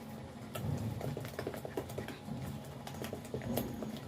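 Light, irregular clicks and taps of kitchen utensils as flour is worked by hand in a bowl, over a faint low hum.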